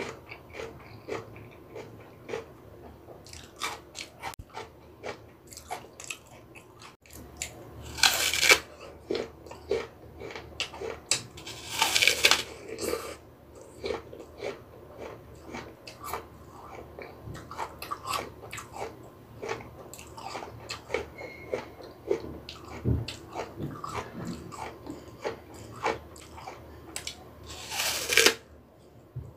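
Crunchy bites into a whole raw apple, with three loud crunches (about 8, 12 and 28 seconds in) and steady close-up chewing of the crisp flesh in between.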